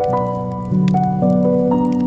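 Slow classical piano music, a few sustained notes at a time, with a new chord or note struck every half second or so. Light crackling clicks of a fireplace run under it.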